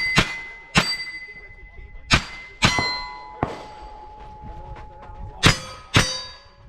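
Pistol shots fired at steel targets in an action pistol stage: about six sharp reports, unevenly spaced, each followed by the ringing clang of a struck steel plate.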